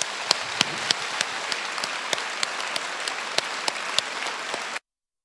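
Audience applauding, a steady dense clapping that cuts off suddenly near the end.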